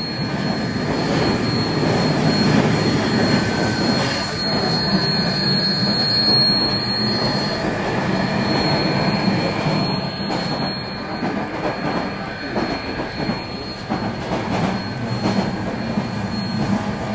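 HO scale model freight train of Florida East Coast diesels and freight cars running past on the layout track: a steady rumble of wheels rolling on the rails with a thin high-pitched whine.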